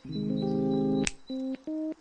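Background music: a held chord of about a second followed by two short chords, a pattern that repeats about every two seconds.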